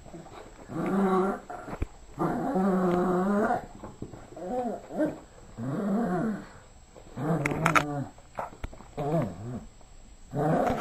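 Yorkshire terrier growling in play over its ball: a string of about seven growls, each a second or so long, some rising and falling in pitch.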